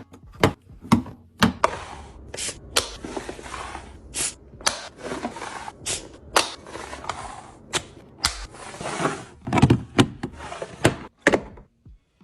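Fridge restocking: a quick run of hard clacks and knocks as items and containers are set down and handled, with rustling between them, stopping shortly before the end.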